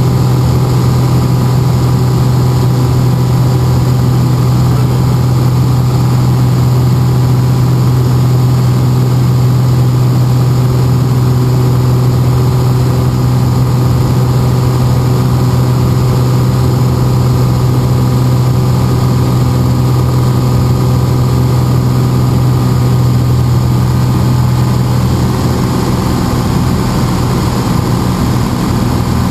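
Piper Lance's six-cylinder piston engine and propeller droning steadily in flight, heard from inside the cockpit. The drone eases slightly near the end.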